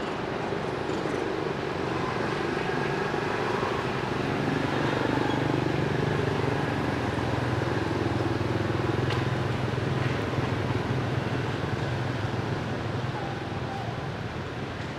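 A motor vehicle's engine running steadily as a low hum, swelling through the middle and easing off near the end, over general outdoor background noise.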